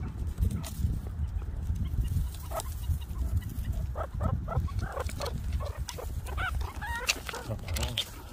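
Meerkats giving short chirping calls, each rising and falling in pitch, several a second from about four seconds in, over a steady low rumble.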